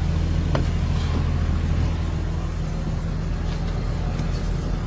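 A motor vehicle's engine running with a steady low hum, with a faint click about half a second in.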